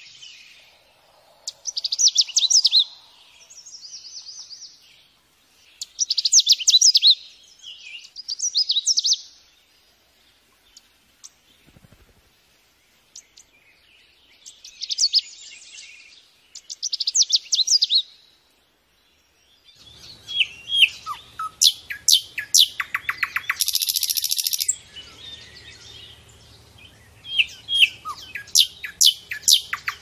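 A Canada warbler sings short, rapid, jumbled warbling phrases every few seconds. About twenty seconds in, the song changes to a common nightingale's loud song of rapid repeated notes, whistles and trills, with a faint low hum underneath.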